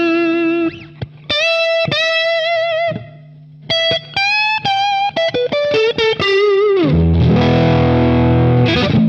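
Electric guitar played through a Boss Katana-100 amplifier, demonstrating its presence control: a run of single sustained notes with bends and vibrato, then a low overdriven chord struck about seven seconds in and left ringing.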